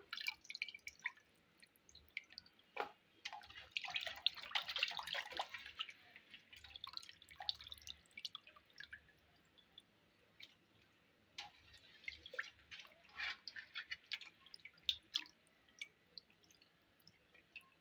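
Raw chicken pieces being rinsed by hand in a vessel of water: faint, irregular splashing and dripping, with a longer stretch of sloshing about four to six seconds in.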